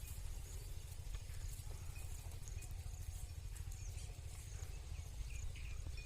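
Outdoor field ambience: a steady low rumble with scattered faint clicks and a few short high chirps.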